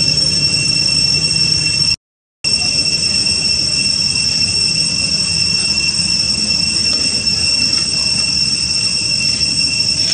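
Cicadas droning steadily in one high-pitched tone over a low rumble, cut by a brief gap of silence about two seconds in.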